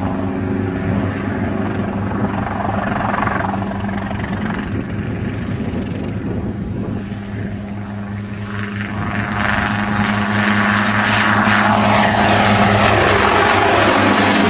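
Helicopter rotor and engine running with a steady low hum, joined about nine seconds in by a rushing noise that grows louder.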